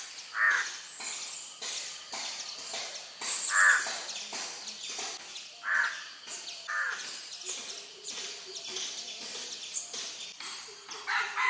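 Crows cawing: four short, harsh calls a second or more apart, with faint chirps of other birds in between.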